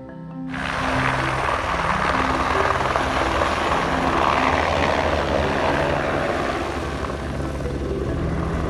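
Helicopter running close by: a steady rotor chop and turbine noise that starts abruptly about half a second in as it lifts off, easing slightly toward the end.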